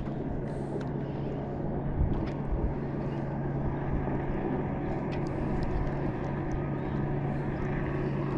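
Motorboat engine running steadily nearby, a low, even drone, with a few faint knocks about two seconds in.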